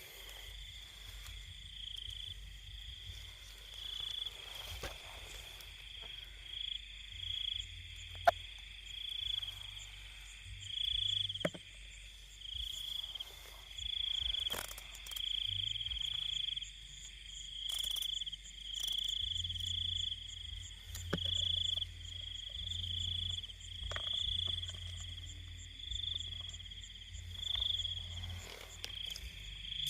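Night chorus of insects and frogs: a steady high-pitched insect trill pulsing in quick beats, with low frog calls swelling every couple of seconds. There is a sharp click about eight seconds in.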